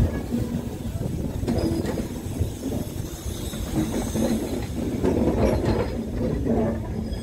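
Northern Ireland Railways diesel multiple unit rolling slowly past: a steady diesel rumble and hum, with a few clicks from the wheels over the rail joints.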